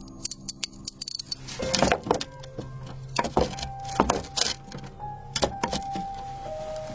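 Animation sound effects over music: a string of sharp clicks and knocks, some in quick runs, with held tones underneath.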